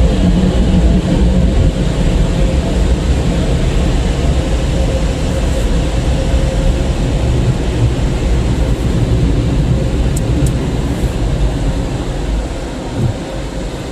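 Automatic brushless car wash equipment running, a loud, steady rush heard from inside the car's cabin, easing off near the end.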